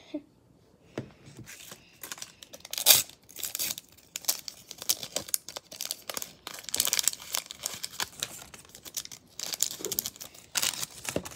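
Small plastic wrapper from an LOL Surprise doll accessory packet crinkling and tearing as it is pulled open by hand, in irregular crackles, the loudest about three seconds in.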